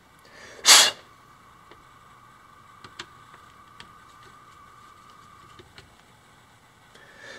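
A screwdriver working at the metal end cap of an electric trolling motor: a few light metallic clicks and taps, scattered several seconds apart. About a second in comes one short, loud rush of noise, the loudest sound here.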